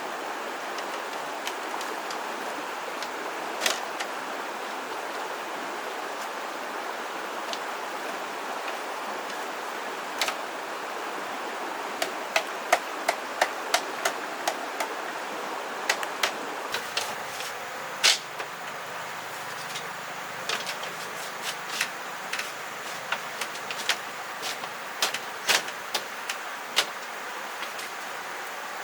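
Scattered sharp knocks and clicks over a steady hiss, a quick run of them about halfway through and more, irregularly spaced, in the last third.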